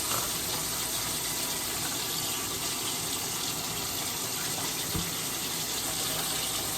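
Kitchen tap running steadily, water pouring into a sink or bowl.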